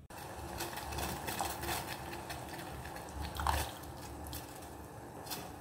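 A saucepan of milk heating on a gas burner: a steady hiss with scattered small crackles and clicks.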